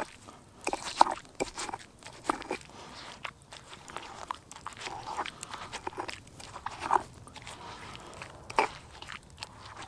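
Stone pestle pounding and grinding chopped tomatoes, onion, chilli and coriander in a stone mortar, making irregular knocks and crunches.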